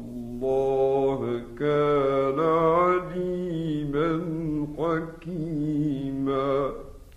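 A man chanting Quranic recitation in the melodic tajweed style, drawing out long ornamented vowels that rise and fall in pitch over several phrases. The voice stops about half a second before the end.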